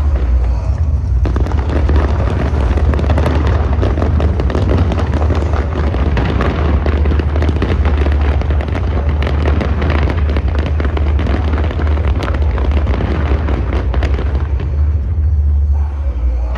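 Fireworks display firing a dense volley of rapid crackles and bangs, starting about a second in, over a steady low rumble.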